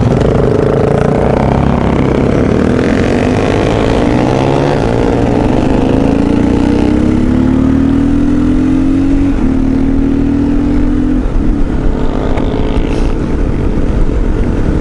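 Dual-sport motorcycle engine pulling under way, its pitch climbing slowly, with a gear change about nine seconds in and the throttle easing off a couple of seconds later.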